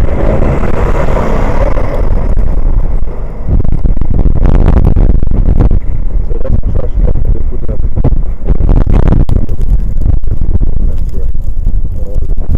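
Snowplow truck driving past, its engine and the noise of the moving snow heaviest in the first couple of seconds, under heavy wind buffeting on the microphone.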